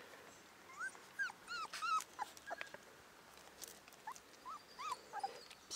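A month-old Cane Corso puppy whimpering in short, high, rising-and-falling whines: a run of about six in the first two seconds, then about four more from about four seconds in.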